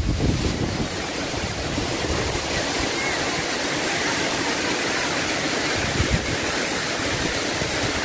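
Waterfall plunging into a rock pool, a steady rushing of water. A brief low bump comes about six seconds in.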